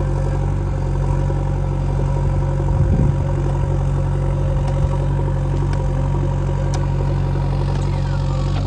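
Heavy diesel engine running steadily at a low, even speed, with a brief low thump about three seconds in.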